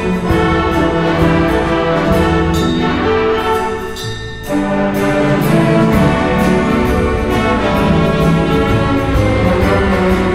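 Youth symphony orchestra playing, with bowed strings and cellos in sustained chords; it thins out briefly about four seconds in, then comes back in full.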